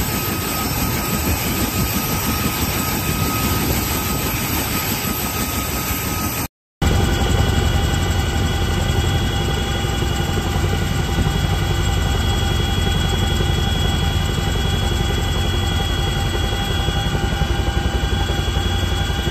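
Steady turbine engine noise with a thin whine. After a brief dropout about six and a half seconds in, a CH-47 Chinook's rotors and turbines are heard from inside its cabin: a deep steady rumble under several steady whining tones.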